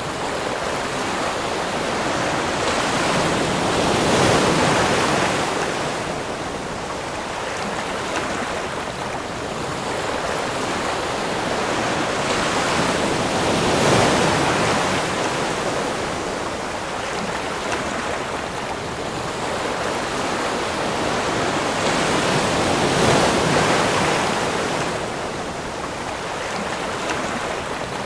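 Ocean surf: waves surging in and breaking, swelling three times, about every nine to ten seconds.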